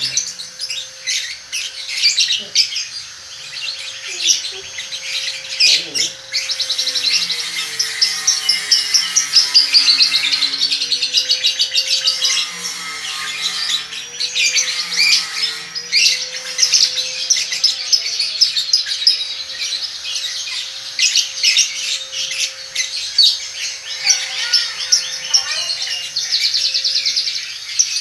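Young lovebird, about a month and a half old, chattering nonstop in a long run of rapid high chirps and trills. This is the continuous 'ngekek' song that Indonesian lovebird keepers call 'konslet'.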